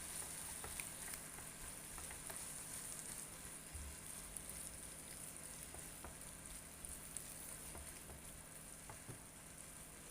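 Food sizzling in a frying pan, with many small crackles, slowly growing quieter.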